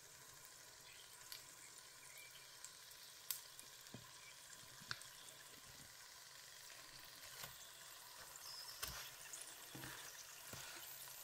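Faint sizzle of sun-dried snakehead fish frying in shallow oil, with a few sharp pops from the hot oil.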